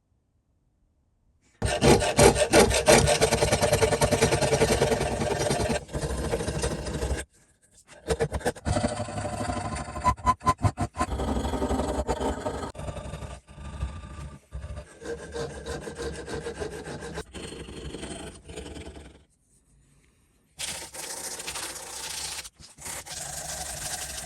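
Rough rubbing and rasping strokes of hand abrasive work on metal, fast and repeated, in several separate stretches broken by abrupt silent gaps.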